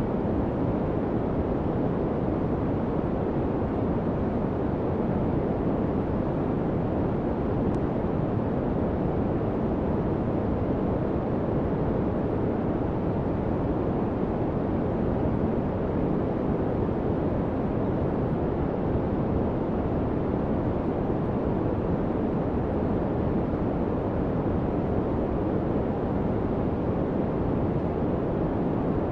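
Steady, unchanging white-noise layer of a subliminal audio track: a deep, even rushing with little in the high end and no changes.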